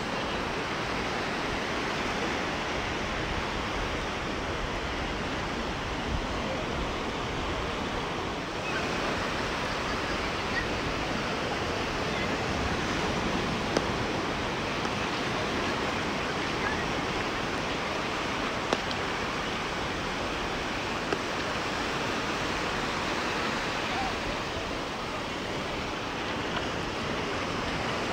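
Waves washing onto the beach: a steady, unbroken surf noise, with a few faint clicks.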